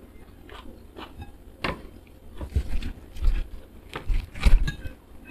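Sounds of a meal at the table: scattered small clicks of utensils and dishes, and chewing, with a few dull knocks about halfway through.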